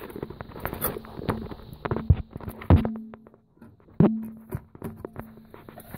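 Clicks and knocks of a fruit machine's sound card and its wiring being handled and unplugged, with sharper knocks about two, nearly three and four seconds in, a low ring lingering after the louder ones.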